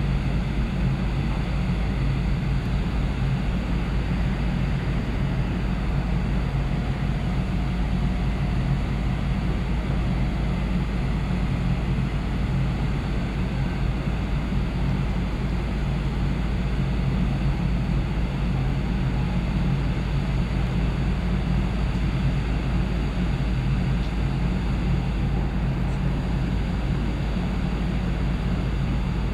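Steady low drone of the car ferry Lavender's engines and funnel, several hum tones held level with a rumble beneath, as the ship comes into port under way.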